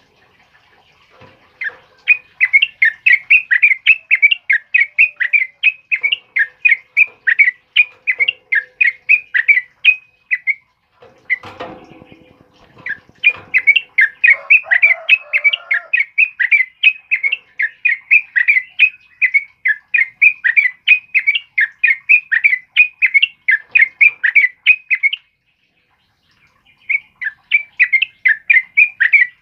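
Caged yellow-vented bulbul (trucukan) singing: long runs of quick chattering notes, about four a second, that break off briefly about ten seconds in and again near twenty-five seconds. A short rustling noise fills the first break.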